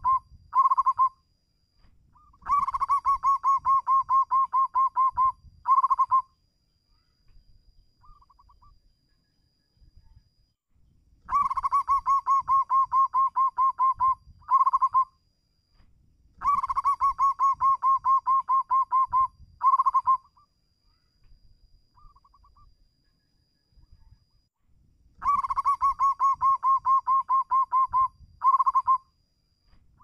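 Zebra dove singing: about five bouts of rapid, staccato cooing notes. Each run lasts roughly three seconds and ends in a short separate burst, with a few seconds' pause between bouts.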